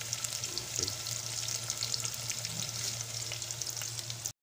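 Sliced onions and garlic sautéing in hot oil in an aluminium pot: a steady fine sizzle and crackle over a steady low hum, cutting out abruptly for a moment near the end.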